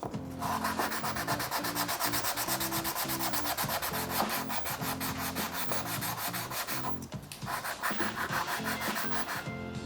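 A bicycle disc brake pad being sanded on sandpaper in rapid, even back-and-forth strokes, with a brief pause about seven seconds in. The strokes sand the contaminated surface off the pad.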